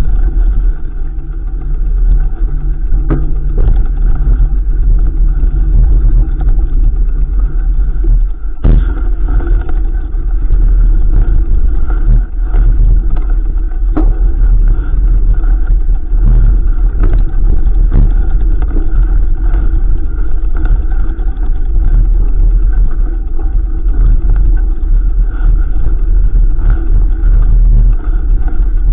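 Mountain bike being ridden over rough trail: loud, steady wind rumble on the microphone, with sharp knocks and rattles from the bike every few seconds, the strongest about nine seconds in.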